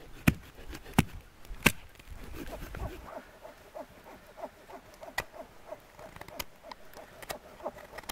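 Knife carving a pot-hanger notch into a stick of dry wood, not green wood. A few sharp knocks come in the first two seconds, then a run of short, quick cutting strokes.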